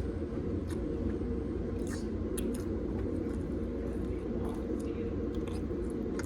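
A mouthful of fried rice being eaten and chewed, with soft scattered clicks and smacks, over a steady low room rumble.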